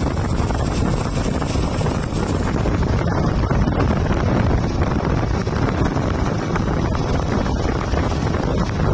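A truck on the move: steady engine and road rumble, with wind buffeting the microphone.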